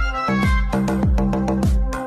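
Background music with a steady beat: deep bass drum hits that drop in pitch, under held instrument tones.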